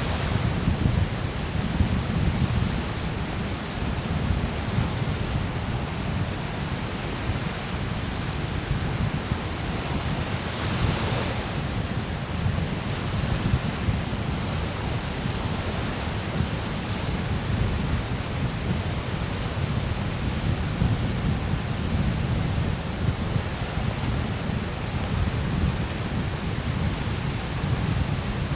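Wind buffeting the microphone in a steady low rumble over the hiss of Lake Michigan surf breaking on a sandy beach. One wave washes in louder about eleven seconds in.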